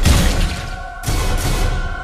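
Loud film soundtrack music with a heavy thud right at the start and a second loud crashing hit about a second in, followed by sustained tones.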